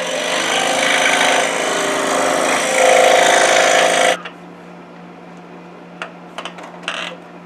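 Scroll saw with a number 7 Pegas modified-geometry blade cutting through 1-inch hard maple, a loud dense rasp that stops abruptly about four seconds in. A few light clicks follow.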